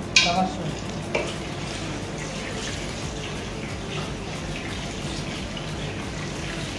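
Hot water being poured into a cooking pot: a sharp splash just after the start and a smaller one about a second later, then a steady watery noise.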